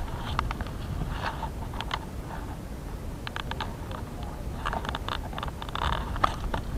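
Wet leaves and grass rustling and brushing as they are pushed aside by hand, in irregular bursts with small crackles, busiest in the second half, over a steady low rumble of handling noise.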